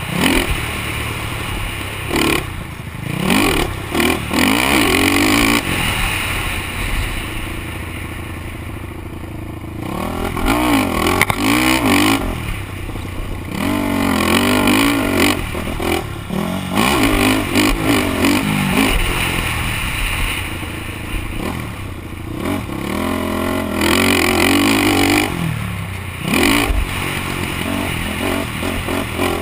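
A 450-class four-stroke single-cylinder sport quad engine revving hard on a motocross track, its pitch climbing and dropping over and over as the throttle opens and closes through the jumps. A rushing noise runs under it, and the engine eases off briefly about a third of the way in.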